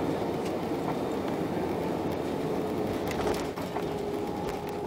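Airliner cabin noise while the plane rolls along the ground: a steady rumble from the jet engines and wheels with a thin steady whine, and a few light knocks and rattles.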